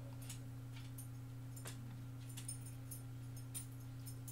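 Quiet steady low hum with a few faint, scattered ticks and rustles from hands handling a leather batting glove.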